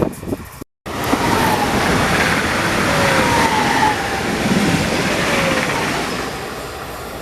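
A train running past, a steady rush of wheel and rail noise with a faint whine that falls in pitch, fading a little near the end.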